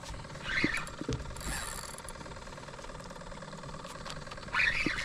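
Fishing gear being handled while a hooked fish is brought to a landing net beside a boat: a few small clicks and knocks, with two short squeaky sounds, one about half a second in and one near the end.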